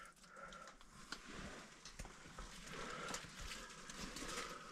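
Faint rustling and scraping with scattered small clicks and knocks, a person shifting over loose rocks while climbing.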